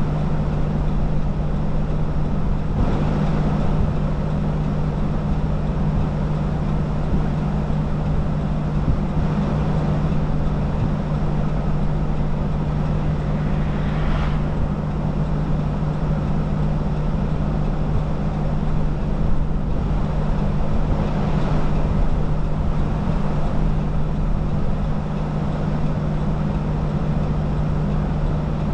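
Steady rumbling noise with a constant low hum, like a vehicle cabin with the engine running, with a few brief swells in the noise.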